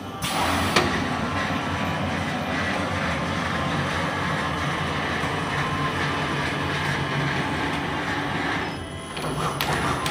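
Air bubble pouch making machine and its stacking unit running: a dense, steady mechanical noise with a low hum that starts abruptly at the outset. It dips for a moment near the end, then comes back with sharp clicks.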